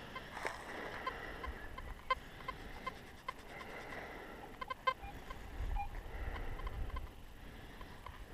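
Chickens clucking: a string of short clucks, several a second.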